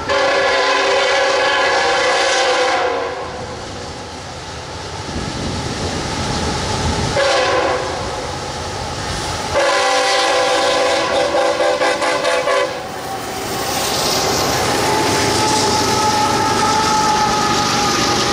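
Diesel locomotive air horn sounding a chord: a long blast, a short one and another long blast, the pattern of a grade-crossing signal. After that the train rolls by with a steady rumble and a faint high ringing from the wheels.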